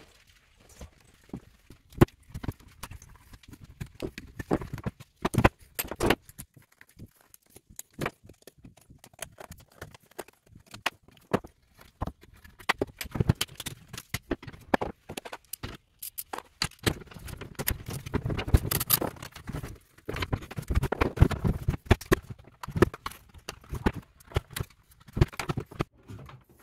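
Irregular clicks and knocks of plastic housing parts and hand tools on a wooden workbench as an electric-car battery contactor block is taken apart. The handling gets busier and louder about two-thirds of the way through.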